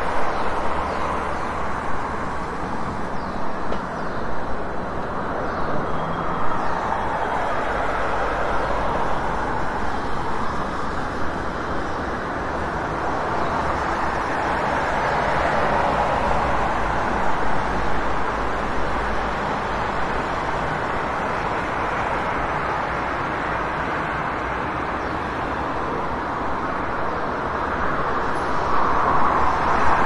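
City street traffic ambience: a continuous wash of vehicle and road noise that swells as vehicles pass, once about halfway through and again near the end.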